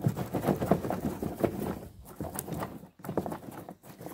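Dry branches and twigs clattering and snapping as they are pushed down by hand into a plastic tub: quick runs of small knocks and cracks, with short pauses about two and three seconds in.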